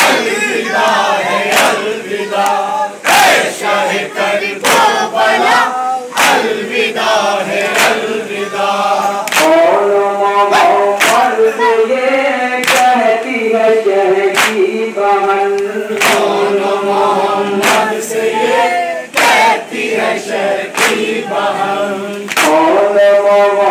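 Men chanting a Shia noha (mourning lament) together in unison. Sharp chest-beating slaps (matam) from the crowd fall together about every one and a half seconds, marking the beat.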